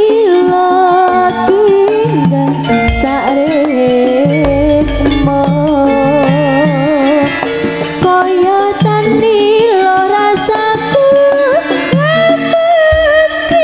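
Live Javanese jaranan gamelan music: a wavering lead melody over steady hand-drum strokes, with a deep low stroke ringing on for a couple of seconds about four and a half seconds in.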